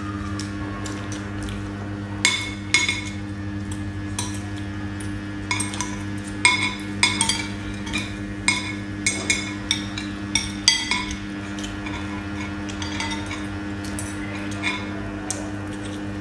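Metal spoons and forks clinking and scraping on ceramic plates and bowls during a meal. A run of sharp clinks comes from about two seconds in until about eleven seconds, over a steady low hum.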